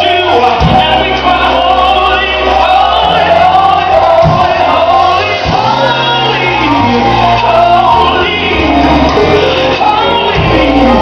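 Gospel song playing, with lead voices and a choir singing over held bass notes that change every second or two.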